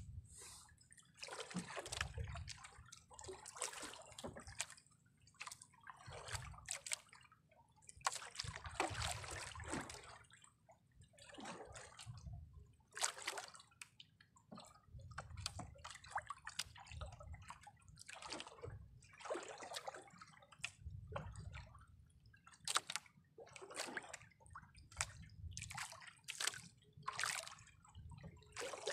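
Small waves sloshing and slapping against the hull of a small outrigger boat, in irregular splashes every second or two.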